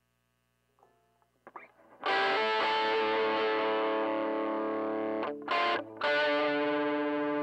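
Electric guitar played through a Joyo Crunch Distortion pedal into a Fender tweed Deluxe (5e3) copy amp. After faint string and pick noises, a distorted chord is struck about two seconds in and left to ring. It is choked off, a short stab follows, and another chord is struck and left ringing.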